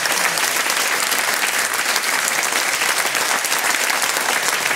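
Studio audience applauding steadily, a dense even clapping that welcomes a guest.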